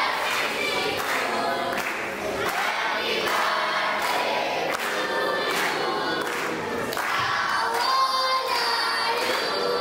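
A group of children singing together in chorus, with a regular beat of sharp taps running under the voices.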